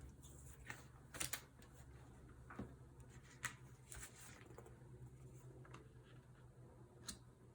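Near silence with a faint low hum and a few scattered small clicks and rustles, the sound of small objects being handled.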